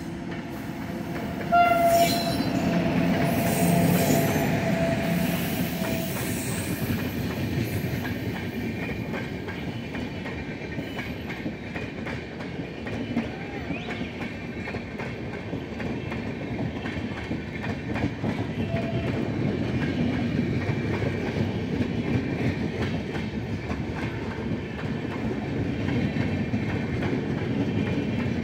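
WAP-7 electric locomotive's horn, one long steady blast starting suddenly about two seconds in and lasting about four seconds as the locomotive passes. After it comes the steady rumble and clickety-clack of its passenger coaches rolling past.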